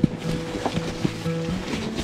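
Background music of held, stepping tones, with a few short knocks and rattles of camping gear being handled, the sharpest right at the start.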